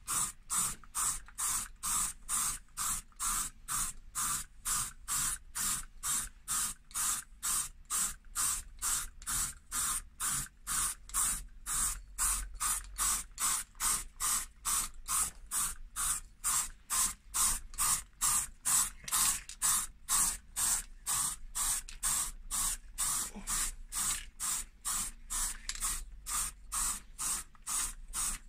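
Aerosol spray paint can hissing in short, evenly spaced bursts, a little over two a second, as a solvent-based coat is sprayed on in light passes.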